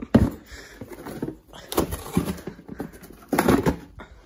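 A dog's claws clattering and scrabbling on a tile floor as it pounces at a cardboard box, with the box knocking. The clattering comes in three quick bursts: near the start, about two seconds in, and about three and a half seconds in.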